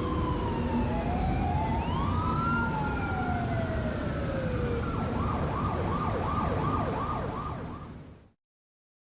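Siren wails, two overlapping long glides, one falling and one rising, then a quick yelping sweep repeating about three times a second; the sound fades and cuts off abruptly about eight seconds in.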